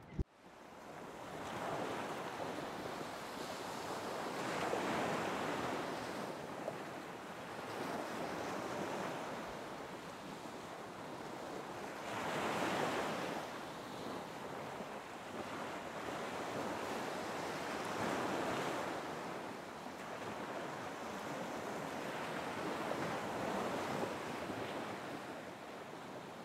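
Ocean surf breaking, a steady rush of water that swells and falls every few seconds as the waves come in.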